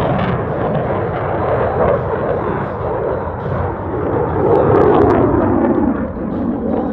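CF-18 Hornet's twin jet engines, a loud steady jet noise that swells to its loudest about five seconds in and eases off near the end.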